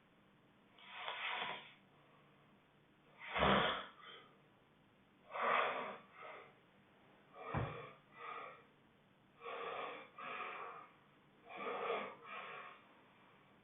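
Honking snoring: a loud snorting honk about every two seconds, each followed by a softer breath, six times over.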